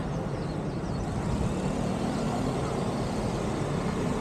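Steady hum of city street traffic, with motorbikes and cars running on the road alongside.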